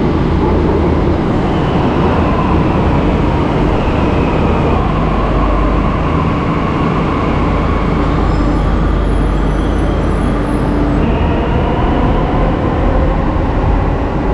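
Delhi Metro train pulling into and standing at a station platform: a steady, loud rumble with a faint whine running through it.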